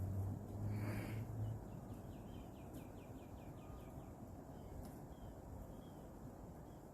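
A bird's quick trill of about ten short high chirps near the middle, with a few faint chirps after it. Underneath is steady outdoor background noise, with a low hum in the first second and a half.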